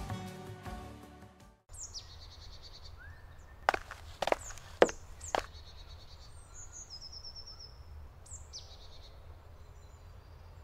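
Background music fades out in the first second and a half, then forest birdsong: several birds calling with short falling whistles and high trills over a faint steady background. Between about three and five and a half seconds in come four sharp knocks, the loudest sounds.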